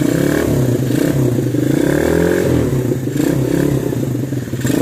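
125cc four-stroke ATV engine running just after an electric start, blipped with the twist-grip throttle so that its pitch climbs and drops back around the middle.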